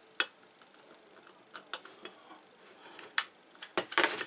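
Metal parts of a Wolfcraft universal drill holder clinking and knocking as they are handled and fitted together: a few separate clicks, then a louder cluster of knocks near the end.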